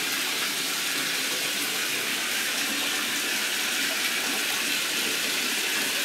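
Bathtub tap running steadily, water pouring into the tub as it fills.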